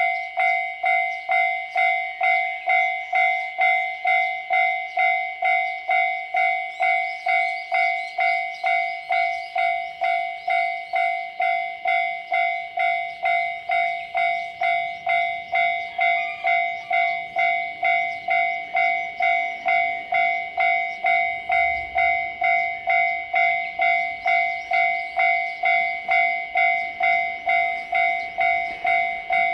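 Japanese railway level-crossing warning bell ringing steadily, about two strikes a second, each strike a ringing two-note tone.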